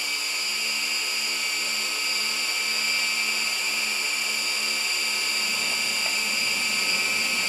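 SG907 GPS quadcopter's motors started and running at idle on the ground: a steady high whine with several tones.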